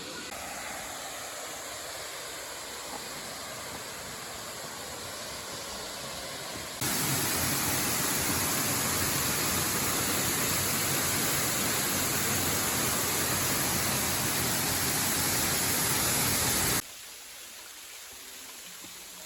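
Waterfall water rushing in a steady roar of white noise, heard in three clips that change abruptly: moderate at first, much louder and brighter from about a third of the way in, then quieter and duller near the end.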